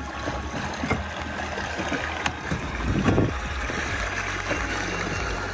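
Water washing along the hull of a fishing kayak under way, driven by a bow-mounted electric trolling motor, over a steady low rumble, with a brief louder swell about three seconds in.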